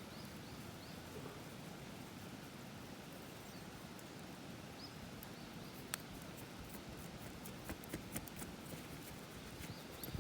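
Small wood fire in a FIREBOX nano stove crackling: scattered sharp pops and clicks over a faint steady outdoor background, more frequent in the second half, with a few faint high chirps.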